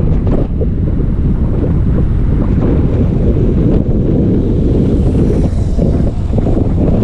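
Loud wind buffeting the microphone of a camera on a moving bicycle: a steady low rumble.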